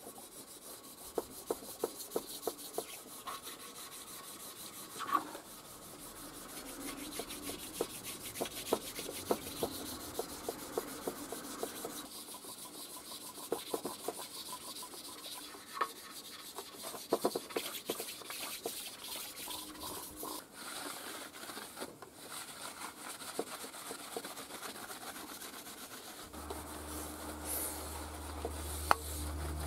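A flat sharpening stone rubbed back and forth over the oiled gasket face of a Nissan SD22 diesel cylinder head, dressing the surface: a steady scraping hiss with many small clicks. A low hum comes in near the end.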